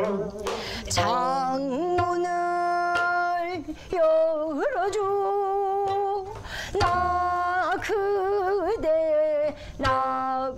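A woman singing a slow Korean song in a traditional vocal style: long held notes with wide, wavering vibrato and sliding ornaments, in phrases separated by short breaks, with gayageum accompaniment.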